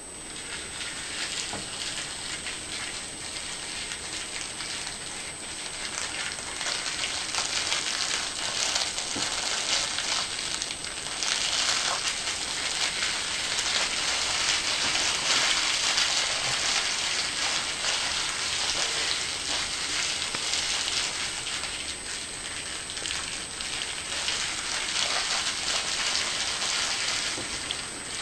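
Clear plastic shrink-wrap being peeled and crinkled off a new DVD case, a continuous crackling that grows louder in the middle.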